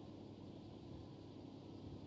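Faint, steady background noise: a low rumble with a thin hiss above it and no distinct event.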